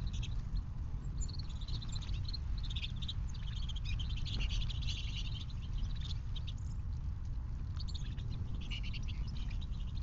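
A flock of small songbirds chirping and twittering at a feeder, thickest in the middle and again near the end, over a steady low rumble.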